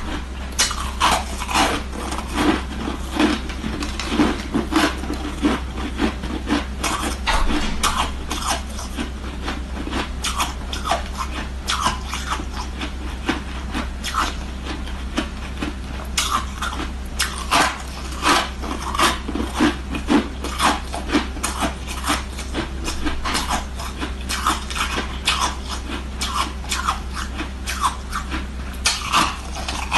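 Ice sticks being bitten and chewed: many sharp, irregular crunches in quick runs, with a steady low hum underneath.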